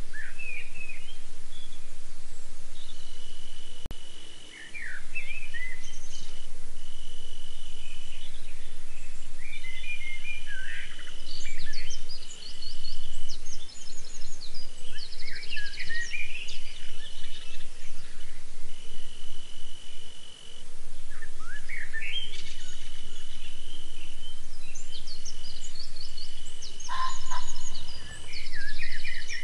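Night chorus of insects and birds: a steady high insect trill that stops and starts, with many short chirping bird calls scattered over it and a low steady hum underneath.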